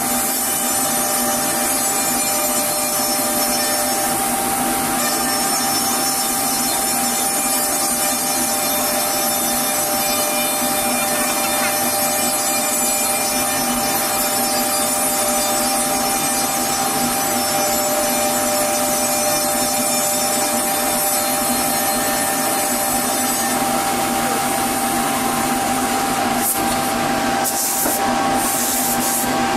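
SCM Morbidelli CX100 CNC machining centre running, its spindle cutting a white panel: a steady high whine of several fixed tones over a constant hiss, with a few brief bursts of high hiss near the end.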